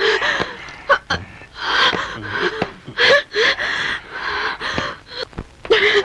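A woman and a man breathing hard and gasping, in uneven breaths about once a second with short moaning catches in the voice.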